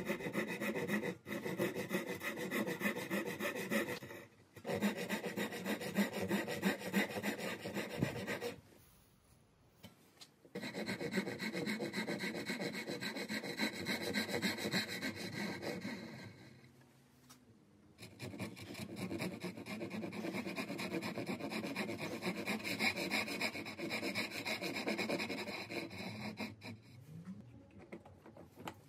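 Japanese handsaw cutting through a wooden brace by hand, in fast, even strokes. The strokes come in several long runs broken by short pauses.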